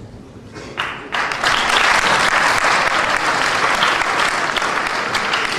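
An audience applauding, starting about a second in and keeping up steadily.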